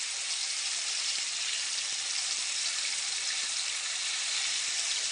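Fish pan-frying in a hot skillet, sizzling steadily.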